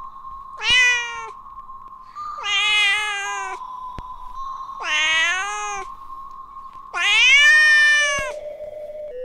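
A cat meowing four times: long, drawn-out meows with a rich, nasal tone, several of them bending down in pitch at the end. A steady high tone runs underneath.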